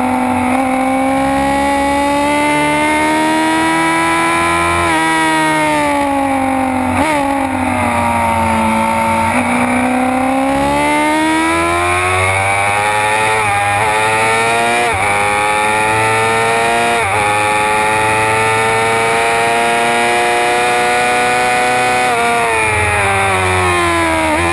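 Suzuki GSX-R 600 inline-four engine at high revs, heard on board at track speed over heavy wind rush. The pitch sinks as it slows, then climbs again under throttle, with a run of quick sharp pitch drops in the middle as it shifts up through the gears.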